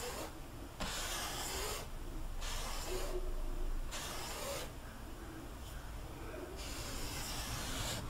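Wide flat brush dragged across wet oil paint on a canvas: a run of about five scratchy swishing strokes, each under a second, with short pauses between them.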